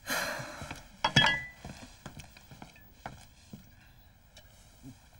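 A short hiss, then a sharp knock with a brief ringing tone about a second in, followed by scattered light taps and clicks.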